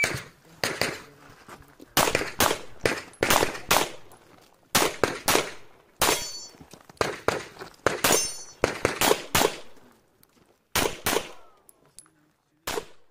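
Rapid pistol fire from a shooter running an IPSC course of fire: about twenty sharp shots, mostly in quick pairs and triples with short breaks between groups as the shooter moves, the last one near the end.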